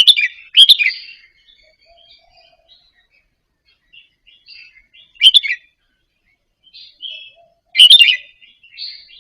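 Red-whiskered bulbul singing: three loud bursts of quick, bright notes, at the start, just past halfway and near the end, with softer scattered notes between.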